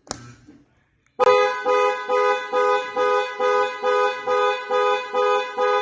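2005 Ford F-250's horn honking in quick, regular pulses, about two and a half a second, set off by the key fob's panic button. A single click comes at the start, and the honking begins about a second later.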